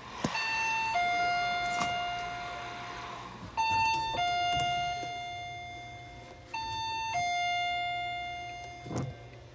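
Electronic two-tone chime, a short higher note falling to a longer, fading lower note like a ding-dong, sounding three times about three seconds apart. A short knock comes near the end.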